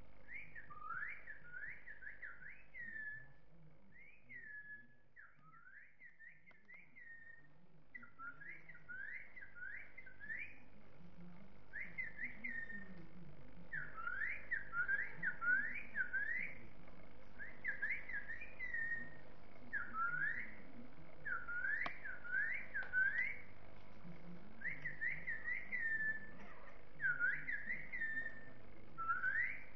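Whistling in quick runs of short chirping notes, each sliding up or down in pitch, three to five at a time with brief breaks between runs. About four seconds in it goes quieter for a few seconds, then returns louder.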